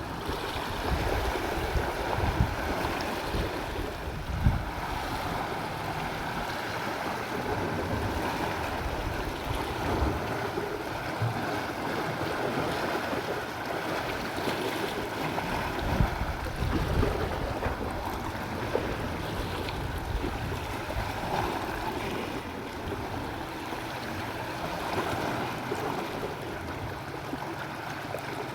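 Sea waves washing steadily against the shore, with irregular low rumbles of wind buffeting the microphone.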